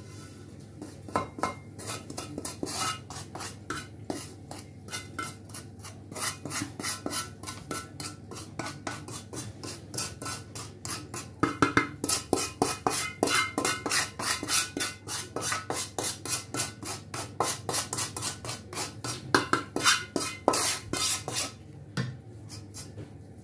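Wooden spatula scraping dry-roasted semolina out of a non-stick pan into a bowl, in quick repeated strokes several times a second. The scraping is loudest through the middle of the stretch and stops near the end.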